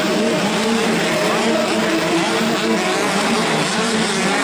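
Motocross dirt bike engines revving, their pitch rising and falling as the throttle opens and closes.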